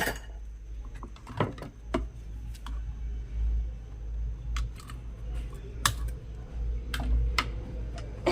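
Scattered small clicks and taps of hand work on a circuit board while a broken track is soldered over with a wire, with a steady low rumble underneath.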